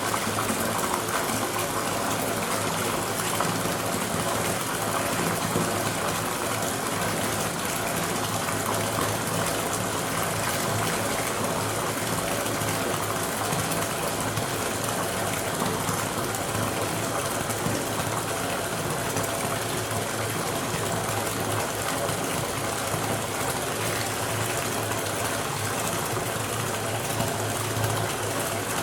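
Bathtub filling: water pouring steadily from the tap into the tub, with a low hum underneath.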